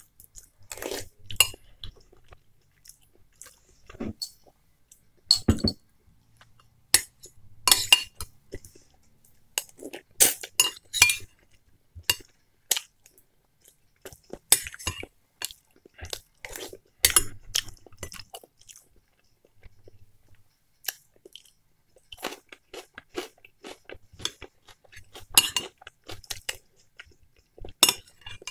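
Close-up eating sounds: a person chewing soup, with many short, irregular clicks as a metal spoon scrapes and clinks against a glass bowl of borscht.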